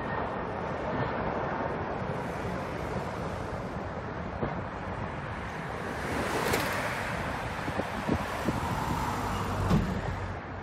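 Boeing 747 freighter's four jet engines giving a steady rushing roar as it passes low on landing approach, swelling slightly about two-thirds through. Wind knocks on the microphone near the end.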